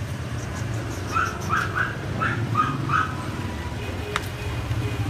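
Puppy yipping six times in quick succession, short high-pitched yelps about three a second, over a steady low rumble of street traffic.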